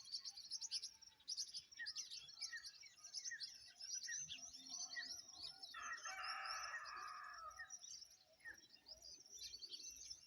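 Dawn chorus of many small birds chirping and twittering, fairly faint. About six seconds in, a longer, louder call with several layered pitches lasts about two seconds.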